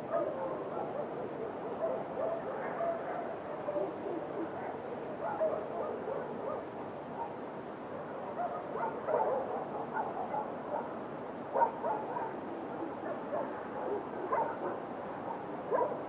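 Dogs barking repeatedly and irregularly over a steady background hiss of night ambience. The barks come thicker from about eight seconds in, with a sharp, loud bark near twelve seconds.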